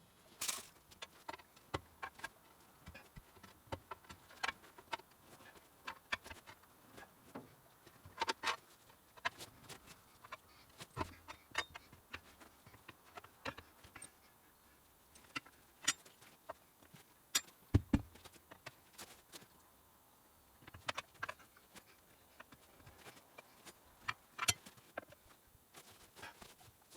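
Irregular metal clinks and knocks of pry bars working a tractor tyre back over its wheel rim, with one heavier thump about two-thirds of the way through.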